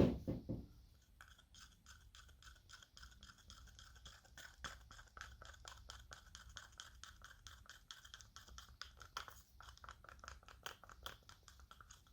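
Popsicle stick stirring two-part silicone mold rubber in a mixing cup: quick, steady scraping strokes against the cup, several a second, after a single knock at the start.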